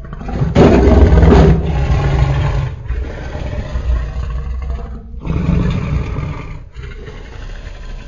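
Custom Tyrannosaurus rex roar sound effect, layered from film dinosaur sounds and slowed animal roars and growls. A loud roar swells in the first second and a half, then gives way to deep rumbling growls broken by brief pauses.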